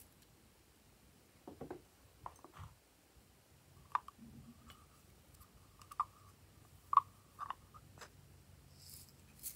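A plastic container and its lid clicking and knocking as they are handled and opened. There are a few sharp knocks with a short ring, the loudest about four, six and seven seconds in.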